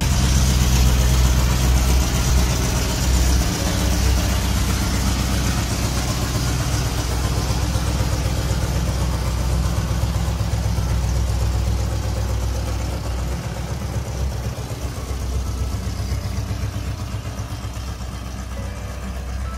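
Rover P6 3500's 3.5-litre aluminium V8, derived from a Buick engine, running as the car moves off. The low engine note is steady, then grows gradually quieter over the last several seconds.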